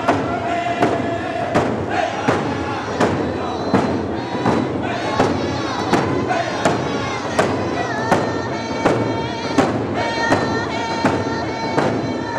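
Round dance song: a group of men singing together at a high pitch while beating hand-held frame drums in a steady beat, about three beats every two seconds.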